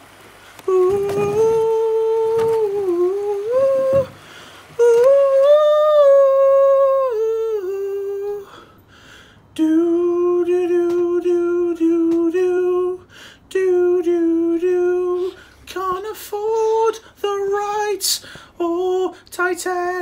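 A voice humming a slow, wordless tune: long held notes with slides between them, in short phrases with brief pauses, and a longer break about halfway through.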